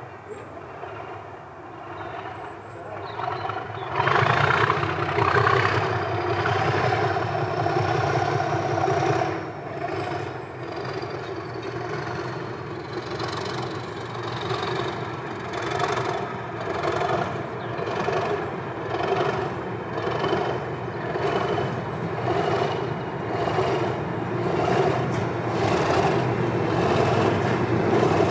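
Diesel locomotive approaching at low speed hauling coaches, its engine running steadily and getting louder about four seconds in, with a faint high whistle that rises and falls. In the second half a regular beat of about one a second comes through as it draws nearer.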